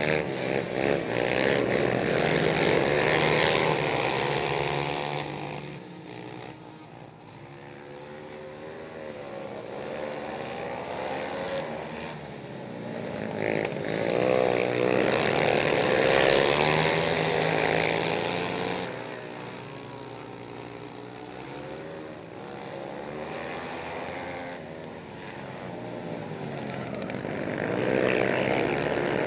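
Several racing ATV engines at high revs, their pitches rising and falling together as the riders throttle through the turns. The sound swells loud as the quads pass close by, drops away as they go round the far end, and swells again about every thirteen seconds, once a lap.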